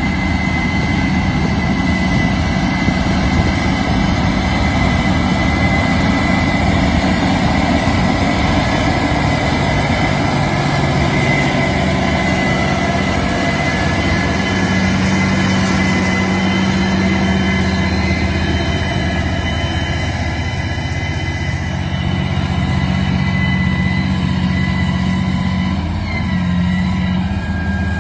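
The ACO 600 articulated tractor's 820 hp V12 twin-turbo diesel running steadily under heavy load as it pulls a subsoiler ripper through the soil, a deep engine drone with a thin high whine above it. The engine note shifts slightly near the end.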